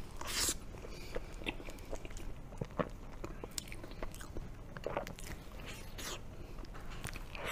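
Close-miked mouth sounds of someone eating a soft, cream-filled snow-skin mochi pastry (xue mei niang): irregular sticky lip smacks and small wet chewing clicks, with a louder smack about half a second in.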